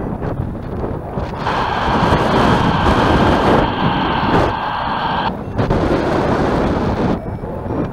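Wind buffeting the microphone in flight, a loud, ragged rumble. From about a second and a half in, a steady high tone sounds over it for nearly four seconds and then stops.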